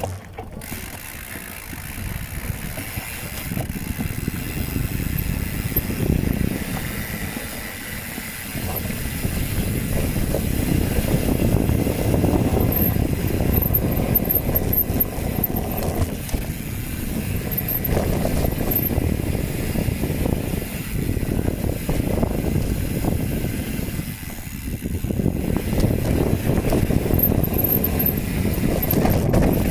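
A bicycle rolling over a trail, with wind buffeting the microphone. The rumble swells and fades, and a few short rattles or knocks come through.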